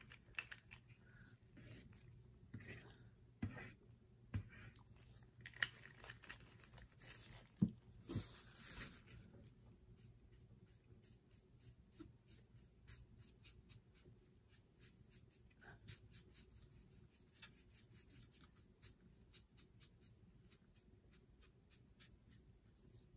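Faint, near-silent handling: a foam brush scraping lightly as it drags alcohol ink across a metal tray, with scattered small taps and ticks. A sharper knock comes about eight seconds in.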